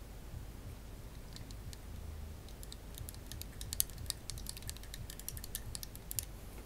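A quick run of light, sharp clicks and taps, sparse at first and then coming thick and fast through the second half.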